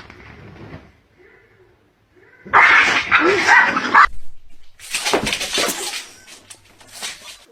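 A dog vocalizing in two loud, rough bursts, each lasting about a second and a half, the first a few seconds in.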